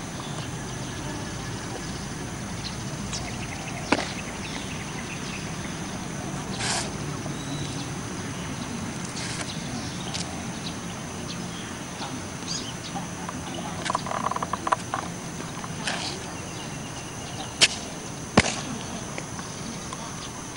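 Sharp snaps from the explosive strikes and foot stamps of a Chen-style taijiquan cannon-fist form, about seven scattered through, the two loudest close together near the end, over steady background hiss.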